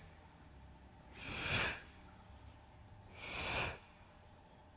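A man's forceful breaths out through the mouth, twice, each about half a second long and two seconds apart. He exhales on each curl-up of an abdominal crunch.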